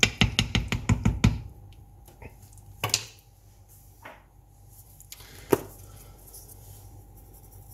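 Wooden spoon stirring a thick stew in a cast-iron casserole pot, knocking against the pot in a quick run of knocks during the first second or so. A few single clicks and knocks follow, the sharpest about five and a half seconds in.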